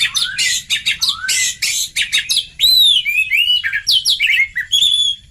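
Oriental magpie-robin (kacer) song: a rapid run of harsh, scratchy rasping notes, then from about halfway a string of clear whistled notes that slide up and down.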